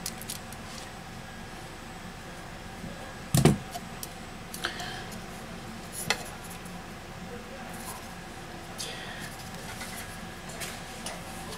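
Light clicks and knocks from a Huawei Mate 9's disassembled metal housing being handled and turned over in the hands, with one sharper knock about three and a half seconds in and a couple of smaller taps after it.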